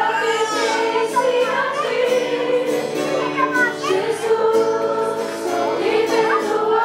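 A group of voices singing a Christian worship song over sustained instrumental accompaniment.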